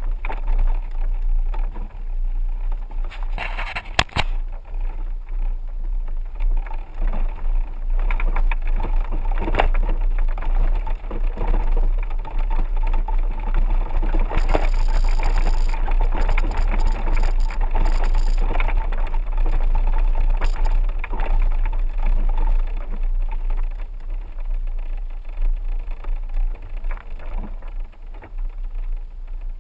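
4x4 vehicle driving on a rough dirt road: a steady low rumble with knocks and rattles throughout, and one sharp knock about four seconds in.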